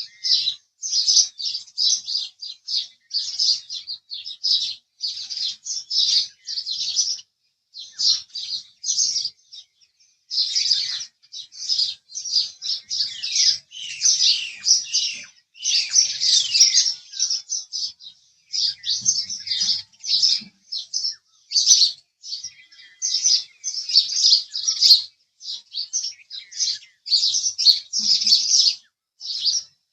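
House sparrows chirping: a near-continuous run of short, rapid chirps, several a second, broken by a few brief pauses.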